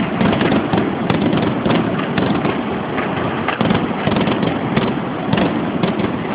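Aerial fireworks shells bursting in rapid, overlapping succession: a dense, unbroken barrage of bangs and crackle.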